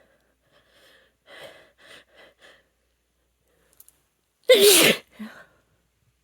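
A person's deliberately induced sneeze. A few short, quiet catching breaths come first, then one loud sneeze about four and a half seconds in, with a brief small sound just after it.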